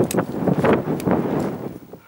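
Wind buffeting the microphone in gusts, with a few light knocks, dropping away sharply near the end.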